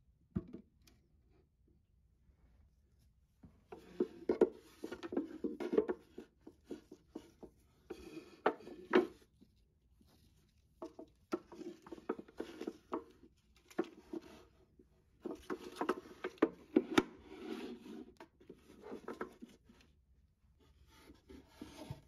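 Handling sounds at a pine night stand's cable compartment: a click about half a second in, then stretches of rustling and rubbing as white power cords are pulled and dragged across the wood, with sharp taps and knocks of the cords and plug against the cabinet.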